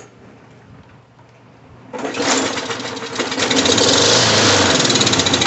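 Bolens push mower's 4.5 hp Briggs & Stratton engine catching about two seconds in and running on a squirt of cleaner sprayed into the carburetor, getting louder toward the end. It fires only on what was sprayed in and does not keep running, which the owner takes as a sign that the carburetor needs rebuilding.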